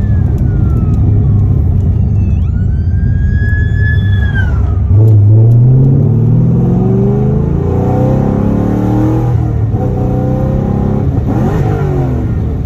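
A cammed, built Chevrolet Camaro engine heard from inside the cabin, cruising steadily and then accelerating hard about five seconds in, its pitch climbing. The pitch drops and climbs again about two-thirds of the way through, as at a gear change. Early on, a high whine rises and falls for a couple of seconds.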